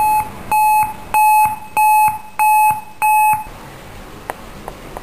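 Six short electronic beeps of one steady mid-pitched tone, evenly spaced a little over half a second apart, from an emergency warning system speaker between repeats of a recorded severe-weather announcement; they stop about three and a half seconds in, followed by a couple of faint clicks.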